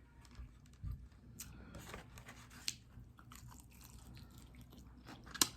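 Close-up chewing and biting on a crispy fried chicken wing: scattered small crunches and clicks, the sharpest just before the end.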